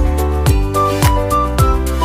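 Background music with a steady beat, about two beats a second, and a melody of held notes.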